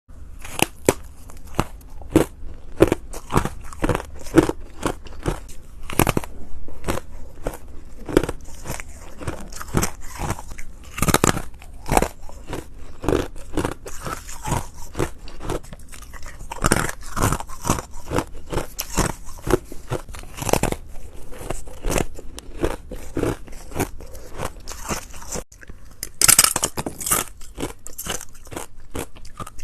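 Ice being bitten and chewed close to the microphone: a fast, irregular run of sharp, crackling crunches.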